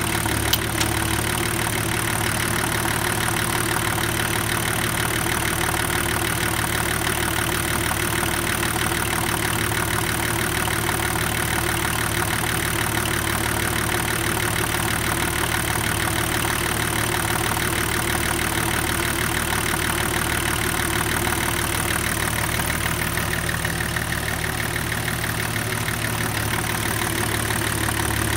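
BMW M51 2.5-litre inline-six turbodiesel idling steadily on its first cold run after being swapped into the Nissan Patrol, started with glow plugs that are not working. A single brief click about half a second in.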